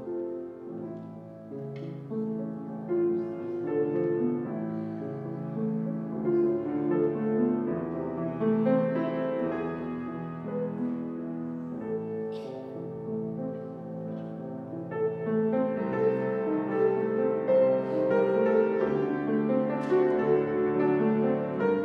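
Slow keyboard instrumental music of held chords with a melody on top, the notes changing every second or two.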